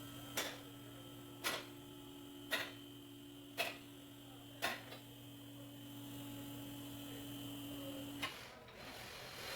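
Car jack being worked to raise the car: five sharp clicks, one about every second, over a steady electrical hum that cuts off about eight seconds in.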